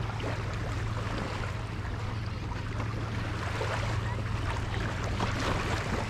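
Waves washing on a beach with wind buffeting the microphone, over a steady low hum.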